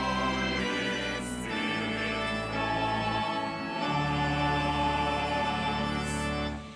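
Choir singing a slow, chanted liturgical response in held chords, with organ accompaniment and a deep sustained bass that changes note a few times. The last chord dies away just before the end.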